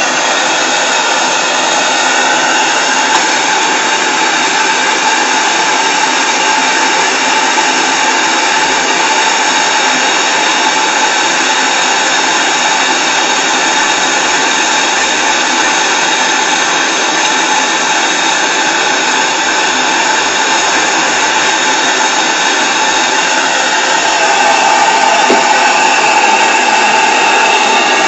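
PMR double-acting V-twin oscillating steam engine running fast and steady on steam from a Saito BT1L boiler, a continuous mechanical whir that gets a little louder about 25 seconds in.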